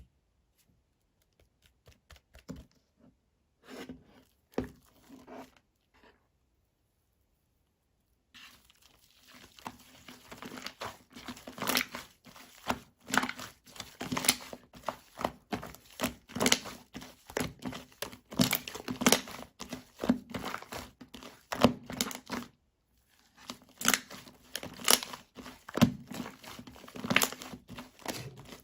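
Slime being squeezed and pressed by hand, making crackling pops. A few soft clicks come first, then from about eight seconds in the popping turns dense and near-continuous, breaking off briefly a little after twenty-two seconds before resuming.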